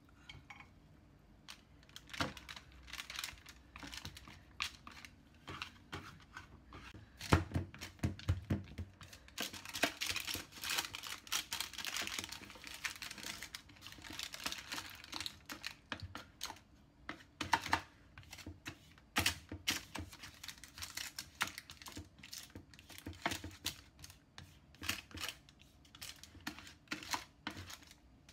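Baking paper crinkling and rustling, with irregular taps and scrapes of a spatula, as a thick, sticky dodol is pressed flat into a paper-lined baking tin. A few heavier thumps come about seven to nine seconds in.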